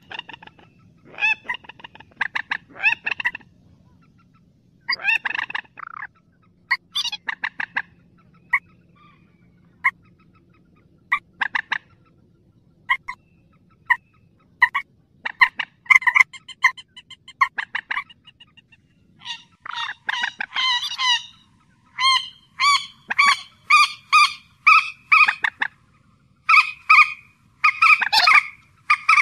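Loud repeated calls of a paddy-field rail (mandar sawah): clusters of short, sharp notes, then single notes about a second apart, then faster, denser runs through the second half.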